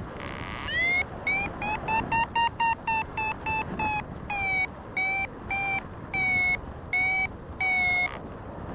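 Paraglider variometer beeping its climb tone. A run of short, quick beeps rises slightly in pitch, then slows to longer, slightly lower beeps before stopping, which signals the glider climbing in lift, strongest where the beeps come fastest.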